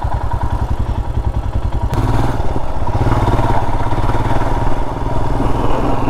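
Royal Enfield Himalayan's single-cylinder engine idling at low revs, a steady, even beat of firing pulses that grows a little louder about two seconds in.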